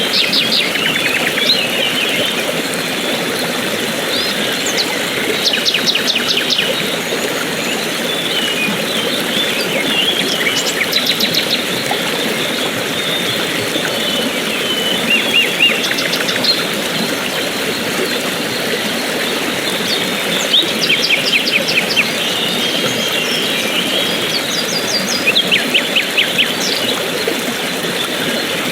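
Steady rush of a stream or small waterfall, with small songbirds chirping over it in quick high trills that come every few seconds.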